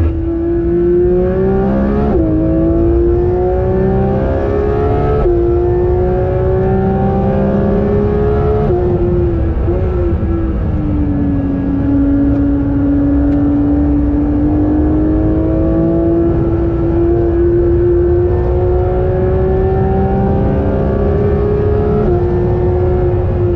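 Porsche 911 GT3's naturally aspirated flat-six at full throttle, heard from inside the cabin over steady road and tyre noise. It climbs in pitch and drops sharply at upshifts about 2, 5 and 9 seconds in, then pulls in one long steady climb before another upshift near the end.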